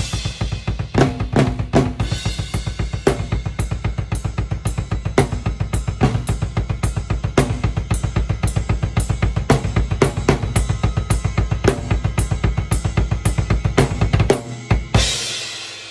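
Drum kit played with a Tama Woodworks 14x8-inch snare tuned to a medium pitch: rapid, steady bass drum pulses under snare hits about once a second and cymbals. Near the end the kick stops and a crash cymbal hit rings out.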